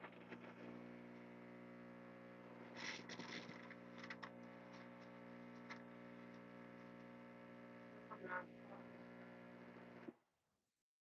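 The Gaggia Magenta Plus's vibratory water pump humming steadily as it primes the water circuit through the coffee spout and steam wand during first setup, with a few light clicks. It cuts off suddenly about ten seconds in, as the machine halts on a fault that the owner suspects lies with the water.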